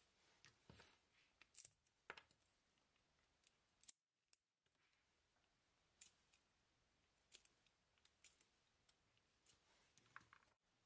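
Faint, irregular sharp snips and clicks, about a dozen, of hand tools (nippers and a blade) trimming small wooden button blanks.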